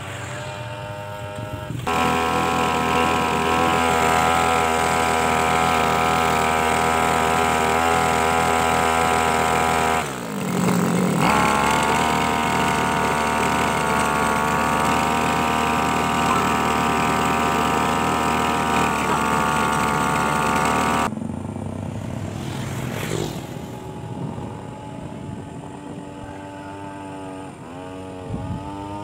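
Small brush-cutter engine rigged as a long-tail boat outboard, running steadily at speed while driving the boat. It is loud for long stretches, with a short dip about ten seconds in, and fainter at the start and over the last several seconds, where its pitch wavers slightly.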